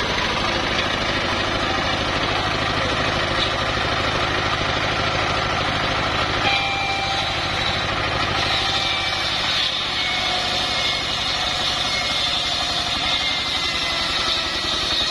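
Stationary diesel engine running steadily with an even chugging pulse, driving a homemade circular saw bench that rips planks lengthwise. A high whine from the saw blade cutting through the wood comes in over the engine and grows stronger from about halfway through.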